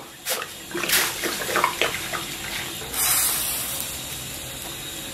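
Water boiling hard in a large wok, bubbling and splashing as cooking wine is poured in from a bottle. About three seconds in it changes to a steadier, hissing boil.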